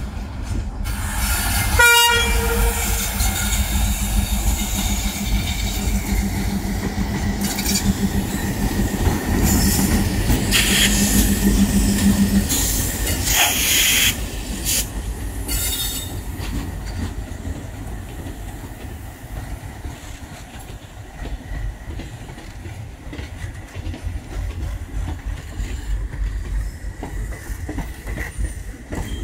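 Twin WDG3A diesel locomotives, each with a 16-cylinder ALCO 251 engine, passing close by with a steady engine drone and a short horn note about two seconds in. Several bursts of wheel squeal and rail clatter come as the locomotives go by. After that the engine sound stops and the coaches roll past with a quieter clickety-clack.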